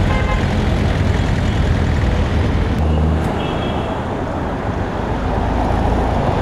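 Loud, steady road traffic: car engines and tyre noise of cars driving close by in slow city traffic.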